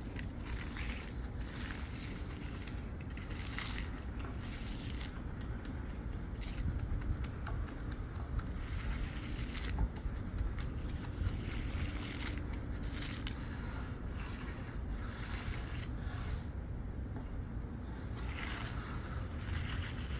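Repeated scraping strokes of a hand finishing tool, such as an edger or trowel, drawn across setting concrete, over a steady low rumble.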